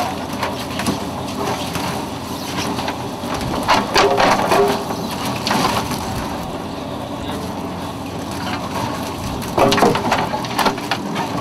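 Spencer Carter net hauler running, drawing a wreck net laden with fish over its drum, with a steady clattering, rustling racket of net, fish and machinery and louder bursts about four and ten seconds in.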